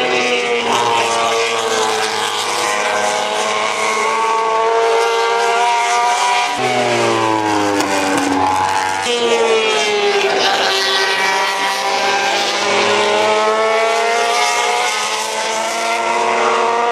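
MotoGP racing motorcycle engines at race pace, their note falling and rising again and again as the bikes brake, shift and accelerate through corners, with a strong climb about seven seconds in.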